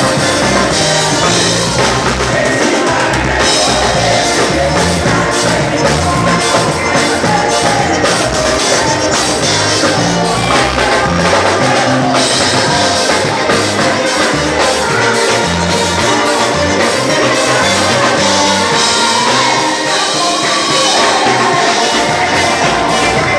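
Live gospel band music from electronic keyboard, electric guitars and drum kit, with singing.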